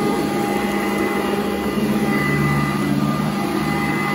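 Sanitaire upright vacuum cleaner running steadily as it is pushed over carpet: a constant motor hum with a few steady whining tones, swelling slightly with the strokes.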